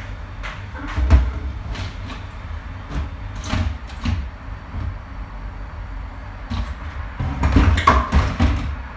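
Plastic basins and kitchen utensils being handled at a kitchen sink: scattered knocks and clatter, with a busier run of knocks near the end, over a steady low hum.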